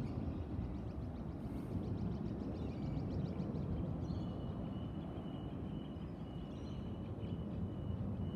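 Steady low rumble of a Waratah electric train standing at the platform, with a thin, steady high whine coming in about halfway through.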